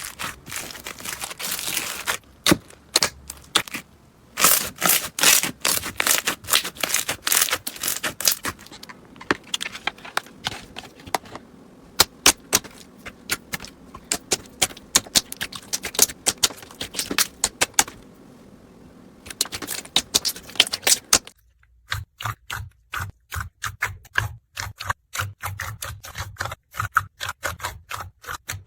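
Slime being squeezed and poked by hand, giving dense runs of crackling, popping clicks. About two-thirds of the way through the background drops away and sharper, more spaced clicks follow, from another batch of slime.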